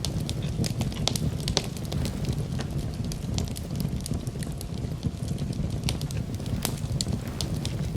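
Campfire burning, with frequent sharp crackles and pops over a steady low rumble of the flames.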